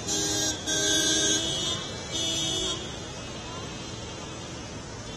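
Vehicle horn honking three times: a short toot, a longer blast of about a second, then another short one, over a steady background hiss.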